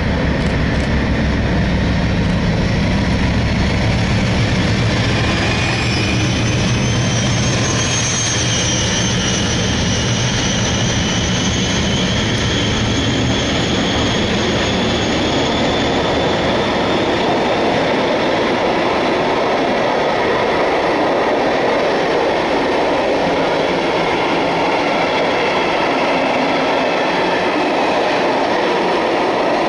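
Freight wagons of a Class 56-hauled train rolling past at speed in a continuous loud rush of wheel and rail noise. A deep low rumble fades over the first dozen or so seconds, and a faint high-pitched wheel squeal comes and goes in the first half. In the second half the rolling noise of the wagons takes over.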